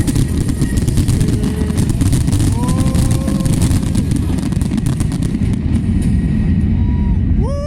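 Fireworks barrage: a continuous low rumble of shell bursts with rapid crackling that thins out about five and a half seconds in. Right at the end a rising, then held wail begins.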